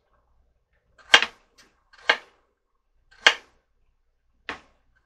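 Kitchen knife slicing carrots paper-thin: four sharp single chops, about one a second.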